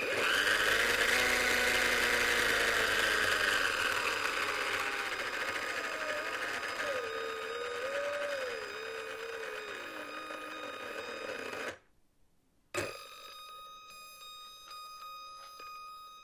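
Small electric motor of a propeller toy plane whirring, loud at first, its pitch wandering and sinking, then cutting off suddenly about twelve seconds in. After a click a second later, a quieter whir with quick, regular ticking runs on.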